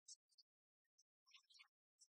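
Near silence, with only faint, scattered bits of high-pitched sound that break off again and again.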